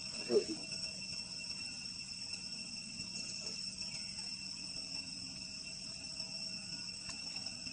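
Insects trilling steadily at a high, even pitch, with a brief low sound about half a second in.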